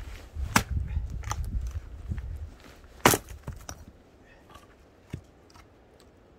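A few sharp knocks, like wood being struck, the loudest about three seconds in, over a low rumble that fades out about halfway through.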